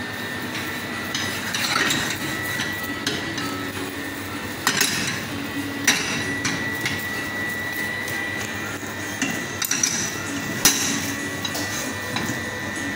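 A metal utensil clinking and knocking against a small stainless-steel saucepan on a gas range, with scattered sharp knocks, the loudest about 5, 6 and 11 seconds in. Behind them runs a steady hum with a faint high whine.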